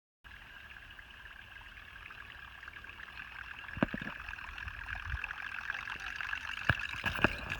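A boat's electric trolling motor running, a steady high whine over the sound of water, with a few sharp clicks.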